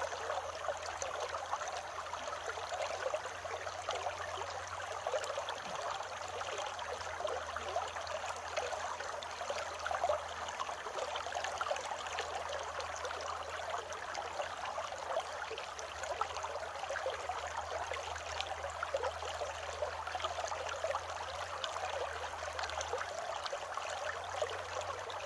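Small creek babbling and trickling steadily over stones, with a faint, steady, high cicada drone.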